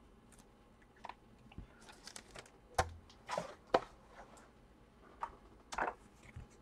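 Trading cards and card-box packaging handled on a table: a scattering of light clicks, taps and short rustles, loudest a little past the middle.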